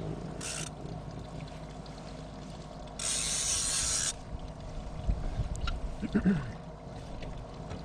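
Fishing reel drag buzzing as a hooked kob pulls line: a short burst just under a second in, then a steady buzz lasting about a second near the middle.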